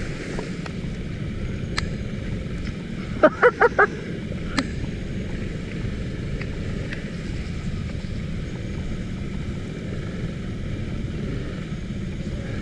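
Motor scooter riding over a rough dirt and gravel road: steady engine and road rumble with wind, and four short horn beeps in quick succession about three seconds in.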